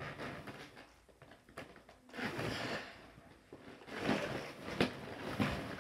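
Inflated rubber balloons rubbing and bumping against each other and the tub as they are pushed around by hand, coming and going unevenly with a quieter stretch about a second in.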